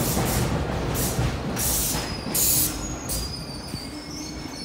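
An R62A subway train slowing to a stop at the platform: rumbling wheels fade as it slows, with two short air hisses about two seconds in, then a thin, high brake squeal near the end.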